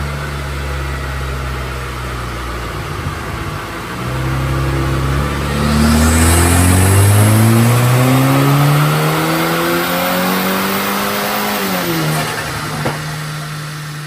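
Tuned Kia Sportage R 2.0's engine making a dyno pull: after a steady hum, the revs climb smoothly in one gear for about eight seconds, then drop sharply as the throttle closes. A single sharp pop follows on the overrun.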